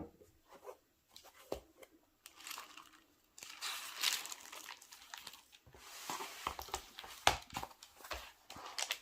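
Paper rustling and crinkling as notebooks and sheets are handled and pages turned, with a sharp knock at the very start and several quick taps and clicks among the rustling.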